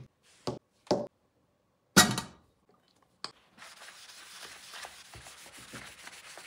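A few short knocks as things are set down on a table, the loudest about two seconds in, then from about three and a half seconds a cloth steadily scrubbing a copper pan lid with soap.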